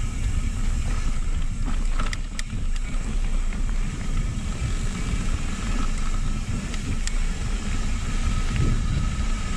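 Wind buffeting a handlebar-mounted action camera's microphone as a mountain bike rolls down a dirt and gravel path, a steady low rumble with the tyres and bike rattling over the ground. A few sharp clicks come about two seconds in.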